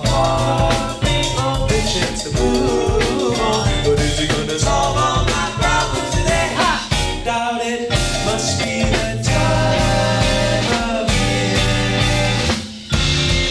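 Live band playing: drum kit, bass and melody instruments such as guitar, flute and vibraphone, with some singing. The music drops out briefly near the end, then comes back in.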